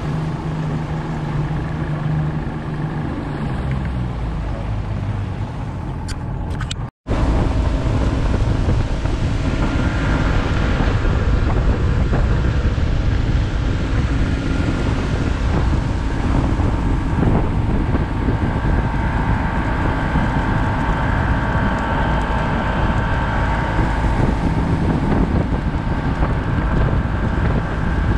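Mariner outboard motor running as a bass boat travels along the river, with wind rushing over the microphone. The sound cuts out for an instant about seven seconds in and comes back louder.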